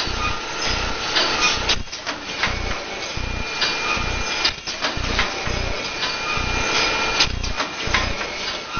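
Paper shopping bag handle-welding machine running: a low pulsing about two to three times a second, with clicks and knocks from its mechanism and a steady high whine.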